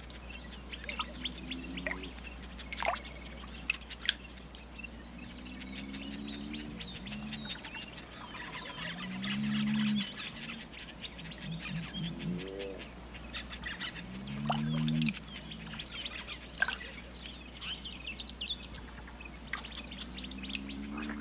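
Giant African bullfrogs calling: deep, arched calls that rise and fall in pitch, each about a second long, coming every few seconds over a busy background of high chirps and clicks.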